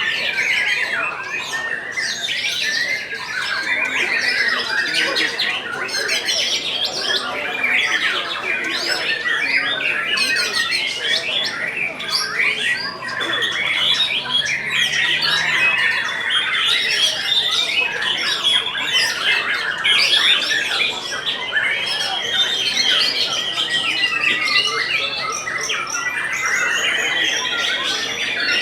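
Several caged white-rumped shamas (murai batu) singing over one another in a contest, a dense run of whistles, trills and harsh chattering calls with no pause.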